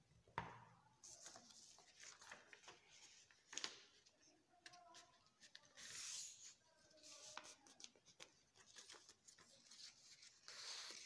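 A sheet of paper rustling and crackling in short bursts as it is folded and creased by hand, with two sharp clicks, one about half a second in and one near the middle.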